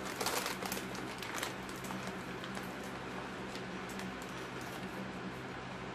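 Foil snack bags of Xtra Flamin' Hot Cheetos crinkling as hands rummage in them: a dense spell of crackling in the first second and a half, then scattered crinkles.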